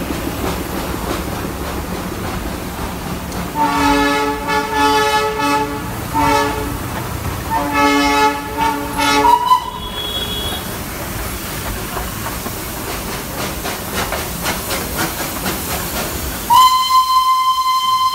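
Darjeeling Himalayan Railway steam toy train running, with a steady rumble and clatter of the carriages on the narrow-gauge track. The locomotive's whistle sounds twice, about four and eight seconds in, each blast lasting a second or two. Near the end a steady, higher whistle tone takes over.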